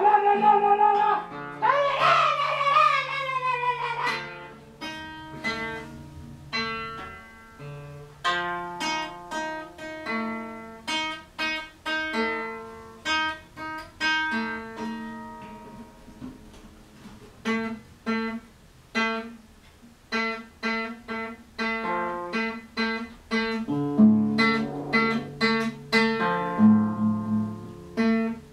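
Guitar played by hand: single notes and small chords plucked one after another in a loose, unhurried line, each ringing briefly before the next.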